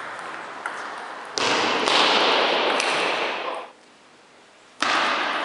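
A table tennis ball clicking lightly off bats and table in a rally. About a second and a half in, a loud, even rush of noise starts; it cuts off sharply about two seconds later, and a second rush begins near the end.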